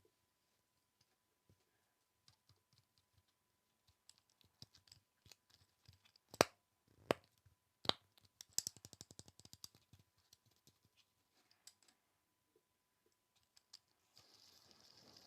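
ASMR tapping: light scattered taps and clicks, three louder sharp clicks in the middle, then a fast run of quick taps. A steady soft rustling hiss begins near the end.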